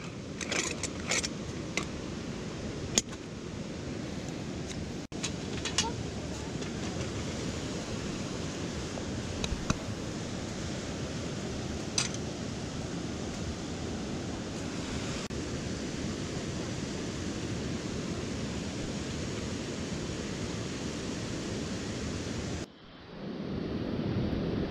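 Mountain stream water rushing steadily, with a few sharp clicks in the first several seconds and one more about twelve seconds in.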